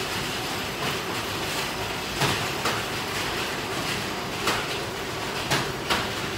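Steady hiss of heavy rain, with a few light knocks scattered through it.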